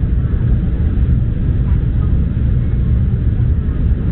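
Steady low rumble of an Embraer 175 airliner's cabin in flight on approach.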